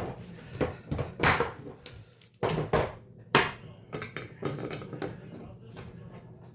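Irregular metal clinks, knocks and a couple of short scrapes of hand tools and steel parts as a car's rear shock absorber is worked loose with vice grips.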